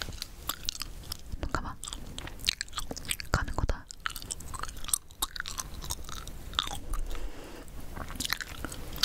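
Gum being chewed close to a microphone: irregular clicking and smacking mouth sounds, with a low thump about three and a half seconds in.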